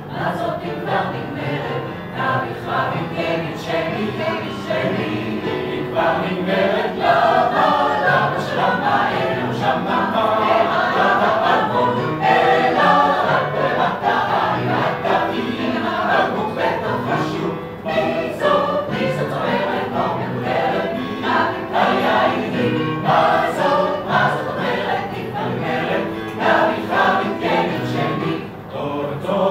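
Mixed choir of men's and women's voices singing together in several parts, with a brief break between phrases near the end.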